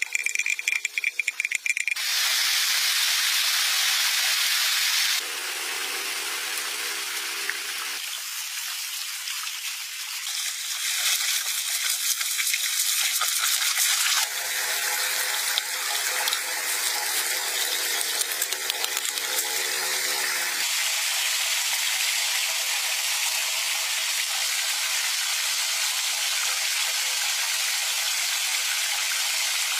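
Shallow stream water rushing and splashing, a steady hiss with quick rattling clicks near the start.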